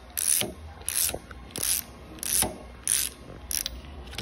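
Socket wrench ratchet clicking in short back-and-forth strokes, six quick bursts about two-thirds of a second apart that stop near the end, as it turns a tri-roller swaging tool to roll-swage a bearing into its housing.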